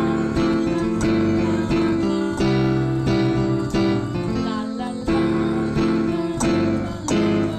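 Piano chords played in a steady rhythm, each chord struck and then held.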